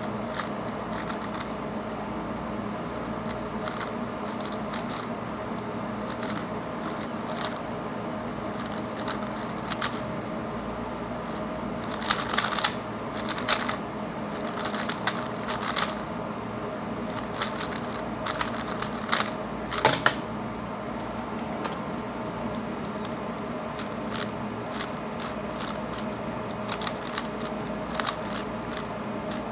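3x3 Rubik's speed cube being turned fast: quick plastic clicking of the layers, densest and loudest in a burst about halfway through, lighter and more scattered elsewhere. A steady hum runs underneath.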